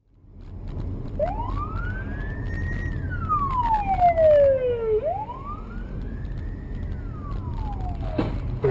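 Emergency vehicle siren wailing, sweeping up and then slowly down in pitch twice, over a steady low rumble of engine and road noise. A sharp knock comes just before the sound cuts off at the end.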